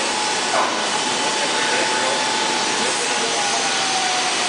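Steady workshop machine noise: a constant rushing of air-moving machinery with a faint steady whine above it.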